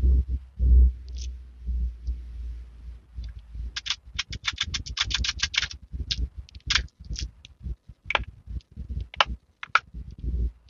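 Small clear plastic storage cases handled and opened over slime: low handling thumps at the start, then a quick run of plastic clicks and rattles about four seconds in, followed by scattered sharp clicks.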